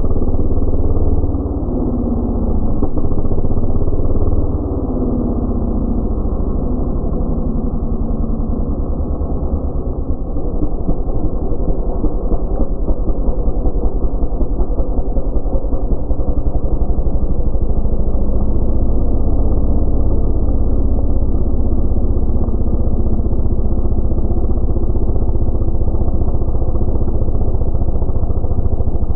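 Stihl chainsaw running, its pitch rising and falling for the first few seconds, then settling into a steady, fast-pulsing run.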